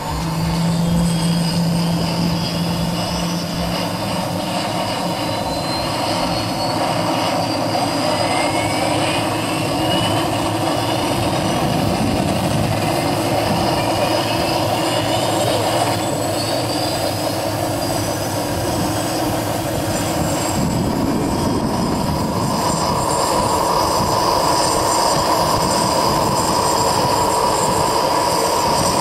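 Radio-controlled scale Hughes 500 helicopter model running on the ground, a steady loud mechanical whine with its tones climbing in pitch through the middle as the rotor speeds up, then settling into a steady high tone near the end.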